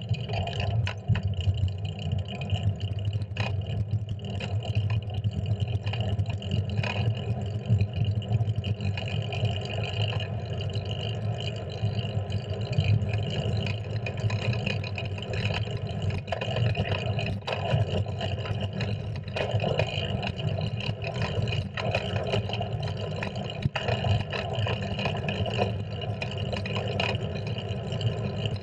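Steady rush of wind and tyre rumble picked up by a handlebar-mounted GoPro on a Bianchi Pista fixed-gear bicycle riding along a paved street. Frequent small clicks and rattles run through it.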